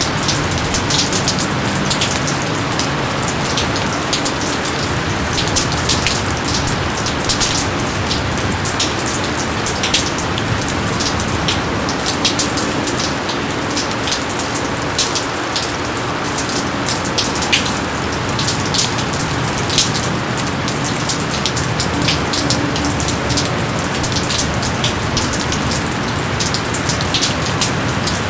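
Steady heavy rain with many close, sharp drops striking surfaces.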